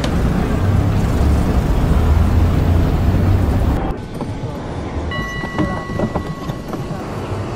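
Low rumble and hiss of a tram running along a street, which drops off suddenly about four seconds in to a quieter street background. About a second later comes a short, high, steady tone.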